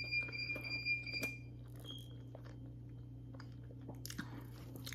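Close-up mouth sounds of someone chewing a soft cinnamon roll, with small wet smacks and clicks. A thin high-pitched tone sounds for about the first second and a half, and again briefly around two seconds in, over a low steady hum.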